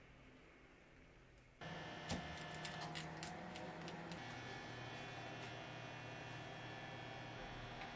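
A steady electrical hum that starts abruptly about a second and a half in, with a short cluster of sharp clicks and crunches soon after as a sandwich is handled on a wooden cutting board.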